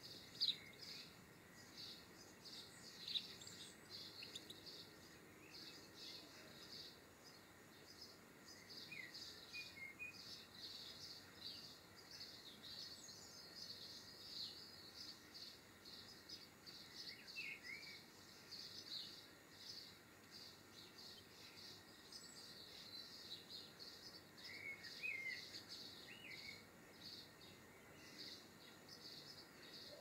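Faint, continuous high twittering of small songbirds, with a few separate lower sweeping calls. Two sharp clicks in the first few seconds.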